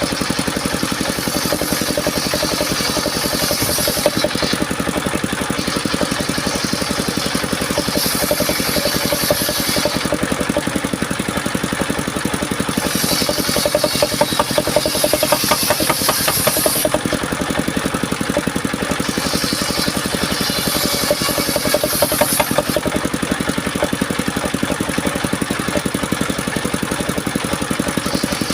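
Engine of a portable circular-saw sawmill running steadily, with the saw blade cutting mahogany: a higher hiss comes in four times and then drops away again.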